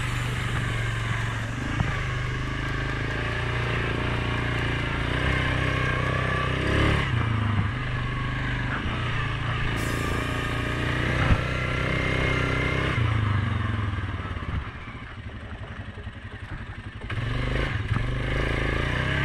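Suzuki KingQuad 750 ATV's single-cylinder engine running as it is ridden along a dirt trail, with a couple of sharp knocks from the machine over bumps. Near the end the engine drops back quieter for a couple of seconds, then picks up again.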